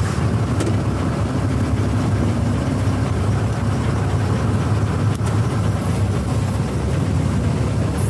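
Combine harvester's diesel engine running steadily at low speed while the machine is driven and steered.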